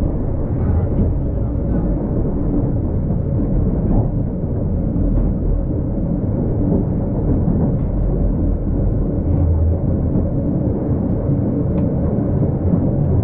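Old tram running, a steady low rumble with a few faint clicks.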